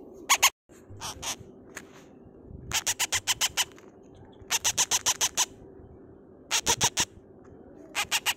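Unfeathered parrot chick making rapid, high-pitched begging calls in groups of several at a time, about eight a second, asking for food as it is hand-fed from a spoon.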